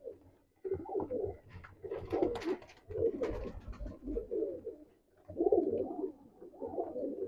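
Many Sialkoti pigeons cooing together, calls overlapping in bouts with short pauses, and a few short clicks in the middle.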